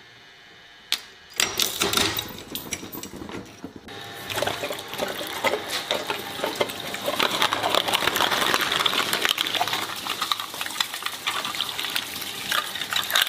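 Twin-shaft shredder's steel cutter blades crunching up a wristwatch: a single click just under a second in, then a dense run of cracks and snaps from about a second and a half. After a short dip near four seconds, steady crunching and cracking as the blades chew through a translucent yellow block with drink cans set inside it.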